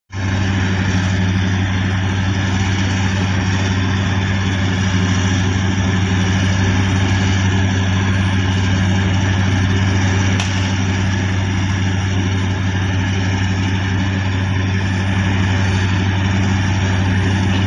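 Large ship's diesel engines running steadily with a deep, even hum.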